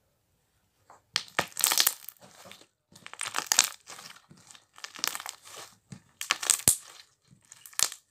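Fluffy slime being squeezed and worked by hand for ASMR. It makes about five crackling bursts with a few sharp pops.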